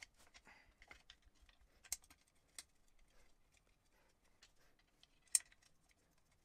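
Scattered small clicks and taps of a hex key and screws as a mudguard is fastened loosely to a bicycle fork by hand, with a sharper click about two seconds in and a louder one past five seconds.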